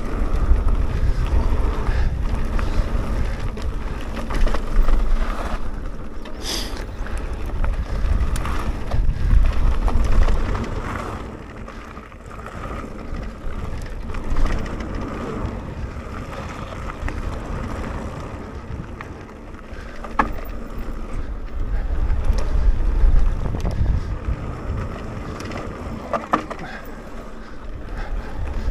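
Mountain bike riding along a dirt trail: knobbly tyres rolling over the ground, with a few sharp knocks from bumps, and wind rumbling on the microphone that swells and fades with speed.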